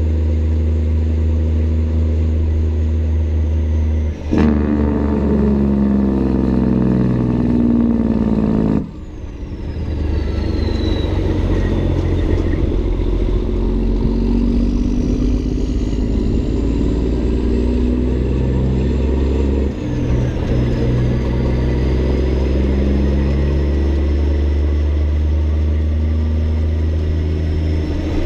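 Caterpillar 3406E diesel of a Peterbilt 379, tuned to about 1000 hp, pulling hard through the gears. The sound comes through its straight stacks, with the pitch climbing in each gear. The sound dips briefly at each shift: about four seconds in, about nine seconds in and near twenty seconds. A faint high whistle glides up and down above it.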